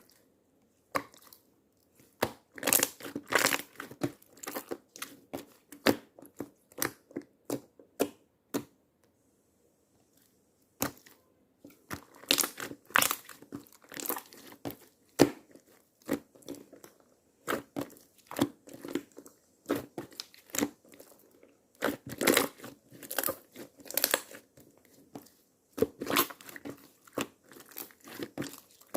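Slime being squeezed, stretched and pulled apart by hand, giving bursts of rapid crackling clicks, with a short pause of about two seconds near the middle.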